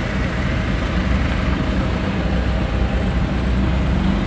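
Steady engine hum and road noise heard from inside a vehicle's cabin while it moves slowly in traffic.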